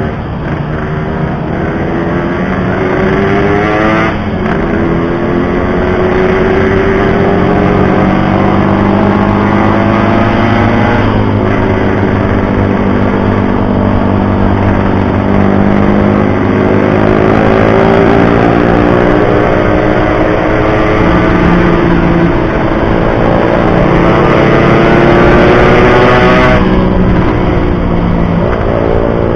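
Yamaha RX-King two-stroke single-cylinder motorcycle engine running under way, its pitch climbing and falling as it revs, with a few short breaks and drops in pitch at gear changes.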